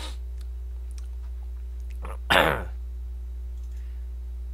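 A man's short, throaty vocal sound with a falling pitch about two seconds in, over a steady low electrical hum.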